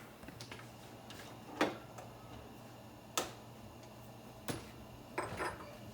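A few light, sharp clicks and taps of kitchen things being handled, spaced a second or more apart, over a faint steady low hum.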